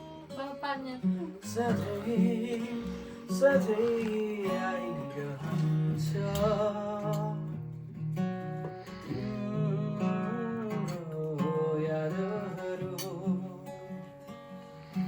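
A man singing a song with wavering, held notes over strummed acoustic guitar.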